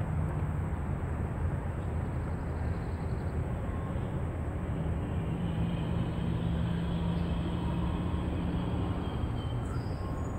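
Steady low rumble of distant engine noise, with a faint steady hum.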